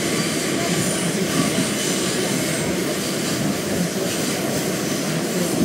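Steady running noise heard from inside a Westinghouse-Amrail R68 subway car: wheels on rail and the car's motors, an even rumble with no pauses.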